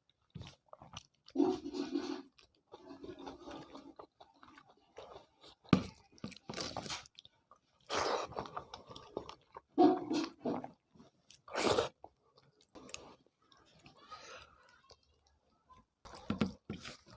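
Close-up chewing of a meal of rice with vegetable curry, dal and coriander chutney: wet, irregular mouth sounds with smacking, and a few sharp clicks, one about six seconds in and one near twelve seconds.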